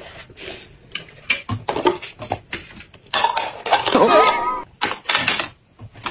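Clinks and clatter of dishes and chopsticks on a glass tabletop, with a series of sharp clicks. About three seconds in, a loud, wavering pitched squeak that falls and then holds for about a second and a half.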